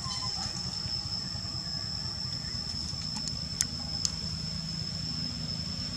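Steady outdoor background of a low engine-like rumble and a steady high-pitched whine, with two sharp clicks a little after the middle.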